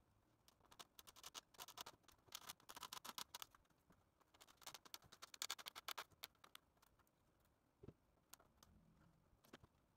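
Faint, irregular scratching and clicking of hands working a bamboo skewer into a foam-board wing, busiest in the first seven seconds, then a few single clicks.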